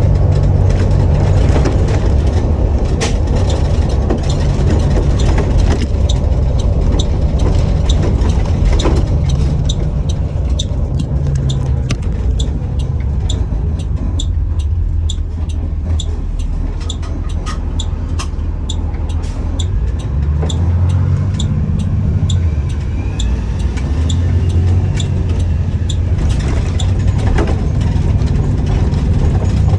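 School bus engine of a Blue Bird All American idling with a steady low hum. A regular ticking, about one to two ticks a second, runs over it through most of the stretch.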